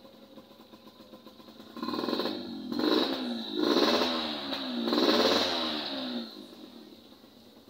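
Motorcycle engine revved in about four throttle blips, its pitch rising and falling with each, then dropping back to a quiet idle.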